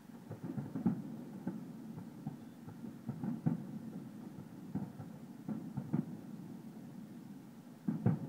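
Distant fireworks display bursting: an irregular string of low thuds and pops, with a louder cluster of booms near the end.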